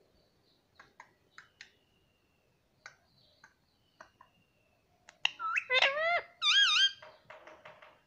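Indian ringneck parrot calling: scattered soft clicks and chirps, then about five seconds in a run of loud, squeaky calls with rising and wavering pitch, ending in a quick string of short chirps.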